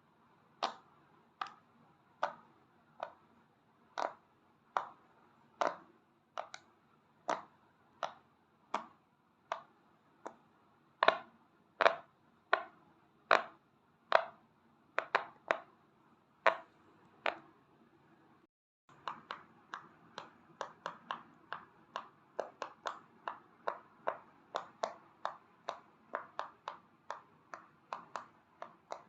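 Bubbles of a square pop-it fidget toy being pressed in one after another, each a sharp pop. At first there is a pop about every 0.7 seconds; after a brief break about two-thirds of the way in, the pops come faster, about three a second.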